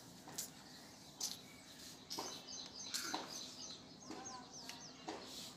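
Fingernails picking through a boy's hair for nits, giving short sharp clicks about once a second. Birds chirp faintly in the background, a run of quick high chirps in the middle and a few falling chirps later on.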